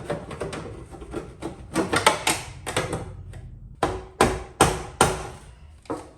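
Hammer blows: a quick, irregular run of knocks, then four hard strikes at an even pace of a little over two a second, and one last knock near the end.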